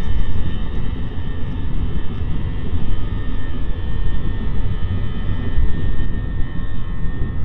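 Cabin sound of an Airbus A320-232's IAE V2500 turbofan engines at takeoff thrust during the takeoff roll: a loud, heavy rumble of engines and wheels on the runway under a steady high fan whine.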